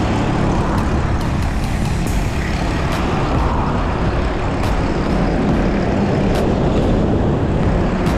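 Strong wind buffeting the microphone of a cyclist riding along a highway, a loud steady rumbling rush with a few faint clicks.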